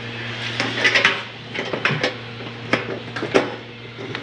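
Irregular string of light clicks and knocks from hard objects being handled, over a steady low hum.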